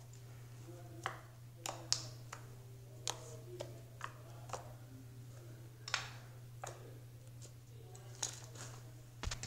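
Light clicks and taps, about a dozen at uneven spacing, of small plastic containers and caps being handled and set down on a stone countertop while slime ingredients are added, over a steady low hum.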